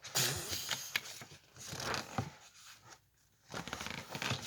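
Paper rustling, in two spells with a short silence between: a page of a picture book being handled and turned.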